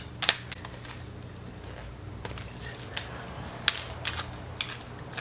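Irregular light clicks and knocks of objects being handled and set down, over a steady low hum.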